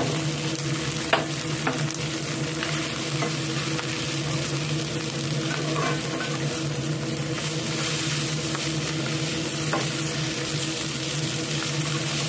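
Flat rice noodles sizzling in hot oil in a non-stick pan as a spatula stirs and spreads them among greens and egg, with a few sharp spatula clicks against the pan, the loudest about a second in. A steady low hum runs underneath.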